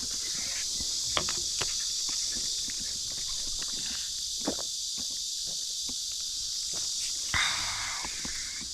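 Steady high-pitched drone of cicadas singing in chorus, with scattered light clicks and footsteps.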